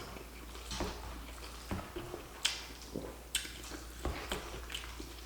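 Quiet, close-up wet chewing and mouth sounds of someone eating, with soft irregular clicks and smacks every half second or so.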